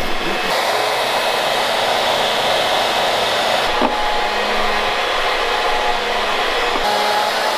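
Steady rushing machine noise, even and continuous, with a faint hum underneath.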